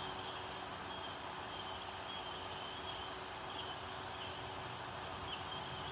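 Outdoor background ambience: a steady hiss of low-level noise with a faint, thin, high-pitched chirping running through it, the chirps coming a little more often near the end.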